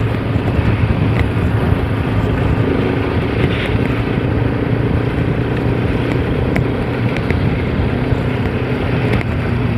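Bajaj Pulsar RS200's single-cylinder engine running at a steady cruise, its pitch holding level, under a heavy rush of wind and road noise.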